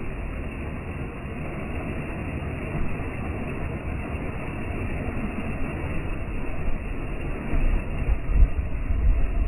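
Waterfall rushing: a steady, deep noise of falling water, swelling into heavier low rumbling near the end.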